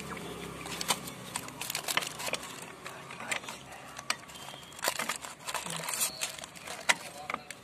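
Plastic packet crinkling and crackling in someone's hands, with irregular sharp crackles from about a second in as the packaging is handled.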